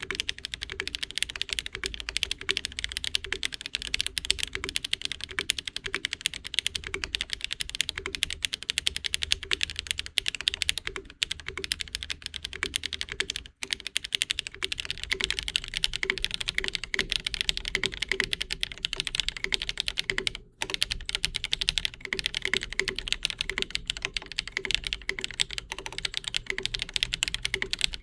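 Mechanical keyboard fitted with HMX (SPM) Pebble switches, typed rapidly and continuously, with two short pauses. It is a foamless build on a stiff plate, giving a sharp, clacky "pebble" sound of mid-to-high pitch.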